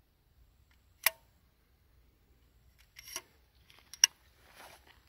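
Sharp metal clicks from a slingshot rifle's retractable twin-rod stock and mechanism being worked by hand: one about a second in, a short cluster near three seconds and another about four seconds in, followed by faint rustling.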